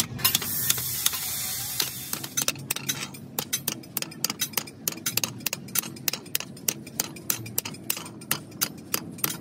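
Hand hammer tapping the rim of a thin sheet-metal disc down over a round steel form, folding its edge to shape a silencer end cap: quick, sharp metallic strikes, about four or five a second. A steady hiss runs through the first couple of seconds, before the strikes settle into their rhythm.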